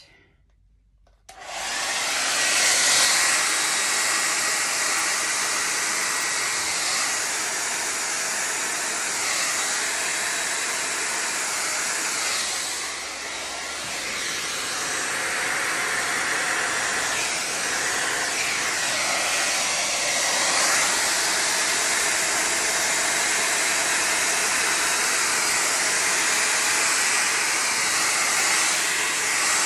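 Small handheld electric blower of the hair-dryer type switched on about a second in and running steadily, a loud airy hiss with a faint high whine, blowing wet poured acrylic paint across a canvas.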